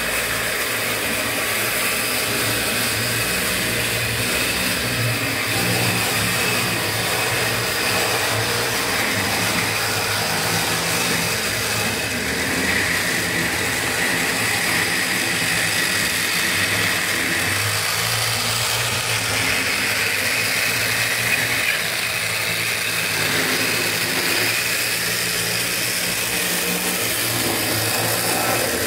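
Steady diesel-locomotive engine sound accompanying a model BB 305 locomotive running on a layout, its low engine note shifting slightly in pitch now and then.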